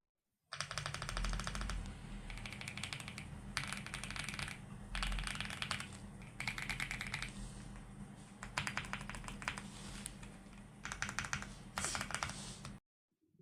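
Typing on an AULA F75 gasket-mounted mechanical keyboard: rapid keystroke clacks in bursts of a second or so with short pauses between. The typing starts about half a second in and stops abruptly near the end.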